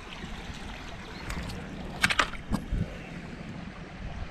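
Steady rush of shallow creek water, with a quick burst of sharp splashes and knocks about halfway through as a small bass is grabbed by hand in the water.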